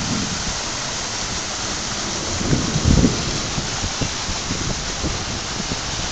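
Heavy rain falling steadily, a dense even hiss, with a stream of runoff pouring off the edge of a concrete overpass deck onto the pavement. A couple of low thumps come about halfway through.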